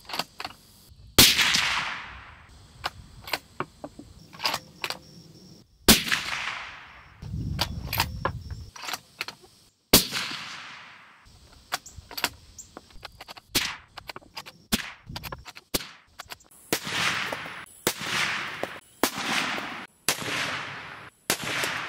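Suppressed 7mm-08 bolt-action rifle (Ruger American Gen 2) firing. Three shots a few seconds apart, each with a fading echo, then a quicker string of shots near the end, with light clicks in between.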